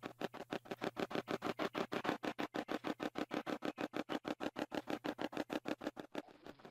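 Spirit box sweep: a rapid, choppy stream of short chopped bursts of sound, about eight a second, which weaken a little near the end.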